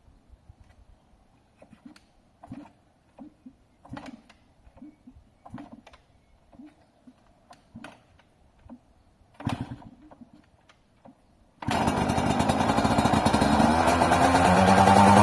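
A 2001 Yamaha YZ125's two-stroke single-cylinder engine starting from cold. First come scattered knocks and clicks, then about three-quarters of the way through it fires and runs loudly. Its pitch rises and then holds steady.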